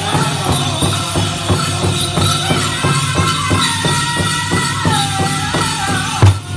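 Powwow drum group singing a chicken dance song: voices in unison over a steady beat on a big powwow drum. Near the end a few harder drum hits land and the singing breaks off briefly.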